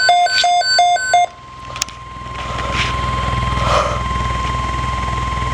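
Emergency alert broadcast heard over a radio receiver. First comes a short burst of rapidly alternating electronic data tones, the SAME header that encodes the alert. This is followed by the steady single-pitched 1050 Hz NOAA Weather Radio warning alarm tone, which signals an urgent weather alert. A low electrical buzz runs underneath throughout.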